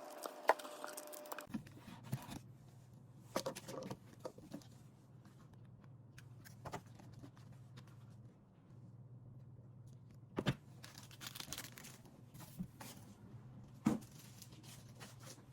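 Intermittent rustling and crinkling with light clicks and knocks, over a steady low hum.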